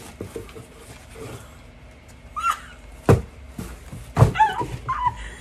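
A framed plaque being unwrapped and handled, with plastic wrap rustling and two sharp thumps about three and four seconds in. A few short high-pitched squeals come in between.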